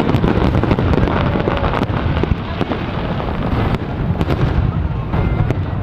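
Aerial fireworks display: many shells bursting and crackling in quick succession, the bangs running together into a continuous rumble.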